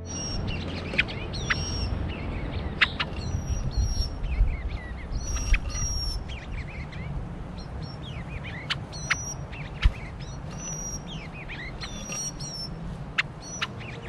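Small songbirds chirping and calling in short high notes and quick falling chirps, with several sharp clicks scattered through and a steady low rumble underneath.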